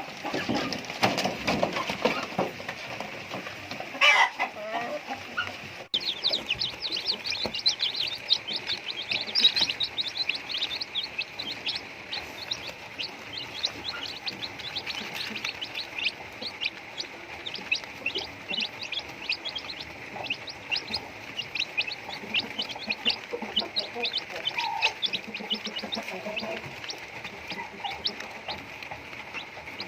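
A flock of backyard chickens clucking, with many short, high chirps coming thick and fast from about six seconds in.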